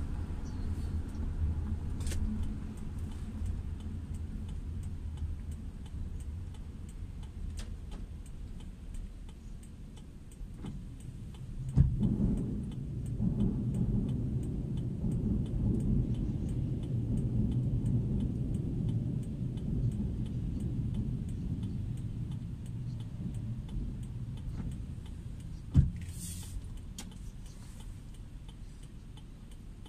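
Low, steady hum of a car's engine and tyres heard from inside the cabin as the car creeps along and then waits in traffic. It has two sharp clicks, about twelve seconds in and again near the end.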